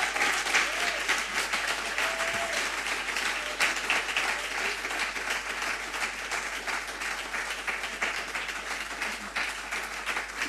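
A small audience applauding, the clapping slowly dying down.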